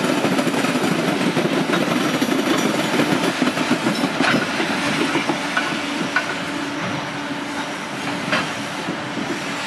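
Freight train of boxcars and container flatcars rolling past: a steady rumble of steel wheels on rail, with clicks as the wheels cross rail joints, growing a little quieter toward the end.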